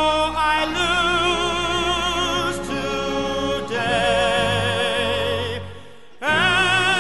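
Musical-theatre singing: several voices hold long notes with a wide vibrato over the accompaniment. Near the end the music drops away briefly, then the voices come back in loud with an upward swoop.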